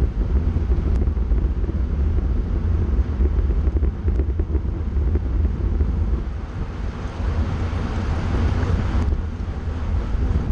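Wind rushing over a bike-mounted camera's microphone at about 42 km/h: a heavy, steady low rumble with a hiss on top. The hiss grows stronger about seven seconds in and drops away suddenly near nine seconds.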